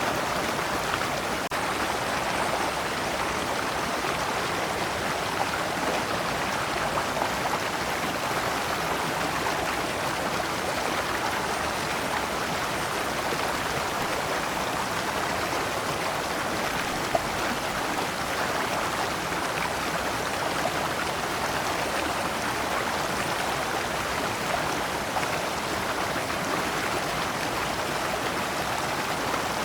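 Shallow stream flowing steadily over large rocks, water splashing and trickling in small cascades.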